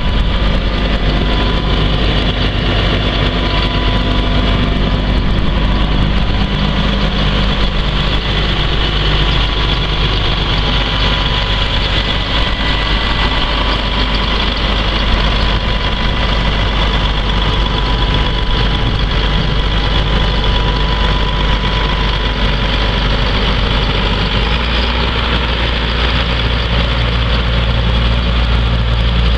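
2011 Challenger MT645C tractor's six-cylinder diesel engine running steadily at idle. Near the end its low rumble grows stronger as the tractor pulls away.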